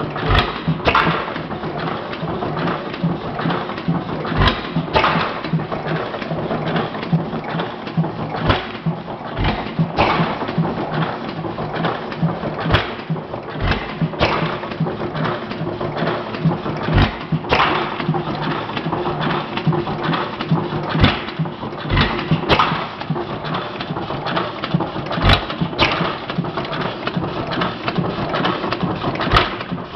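Model hit-and-miss gasoline engine with hot-tube ignition running, its valve gear clattering steadily. A sharp bang comes at uneven gaps of about one to four seconds as it fires, and it coasts between the bangs.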